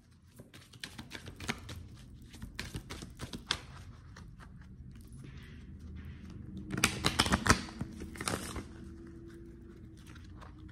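Tarot cards being shuffled by hand: a run of light clicks and flicks of card edges, coming in scattered clusters and busiest about two-thirds of the way through.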